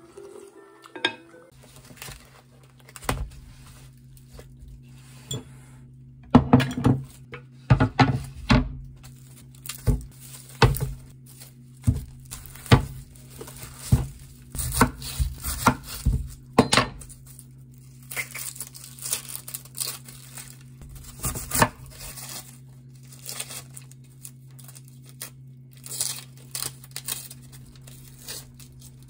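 Kitchen handling sounds: a run of sharp knocks and clinks of dishes and utensils, busiest in the first half, then crinkling and rustling of packaging, over a steady low hum.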